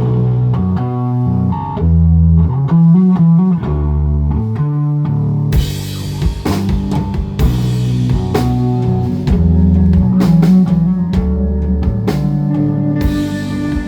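A rock band playing live: electric guitar and bass guitar over a drum kit, with the drums coming in on cymbals about halfway through.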